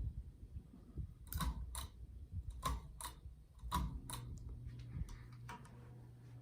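Hampton Bay St. Claire ceiling fan running on medium speed: a steady low motor hum with a series of sharp, irregular clicks and ticks over it.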